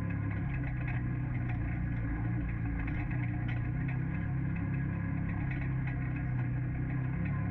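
A four-seater UTV's engine running steadily, heard from on board, with a few light rattles above the hum.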